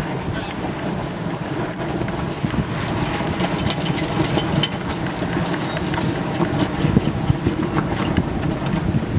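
Wind buffeting the microphone aboard a sailboat under way, a steady rough rumble, with scattered sharp clicks and rattles from about three seconds in.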